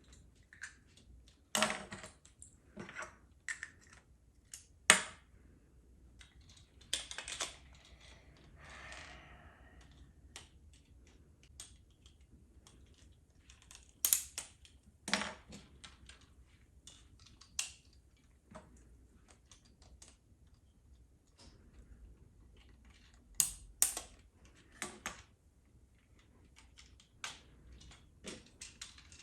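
Irregular clicks and clatters of plastic toy parts and a small screwdriver being handled while a take-apart toy robot is reassembled, with sharper knocks at a few points.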